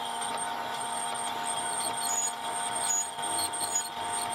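South Bend 14½-inch lathe running, its cutting tool taking a pass on a spinning mild steel plate: a steady machine drone with a thin high whine that comes and goes.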